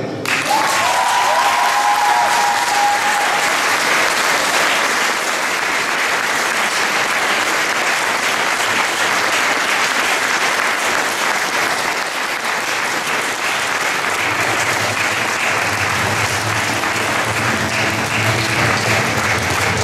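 Audience of students and guests applauding, a dense steady clapping that holds at one level.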